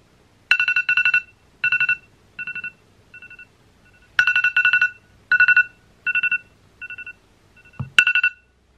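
Smartphone alarm going off: short bursts of rapid two-pitch beeps about every 0.7 s, some louder than others. Near the end a knock as a finger touches the phone, and the alarm stops.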